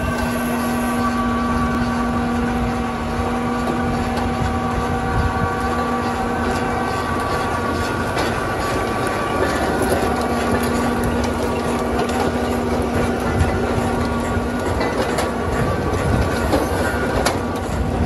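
Reekie Cleanflow 2000 potato harvester running off the tractor's PTO: a steady, continuous mechanical rattle and clatter of its webs and rollers over a steady drive hum, with scattered sharper clicks near the end.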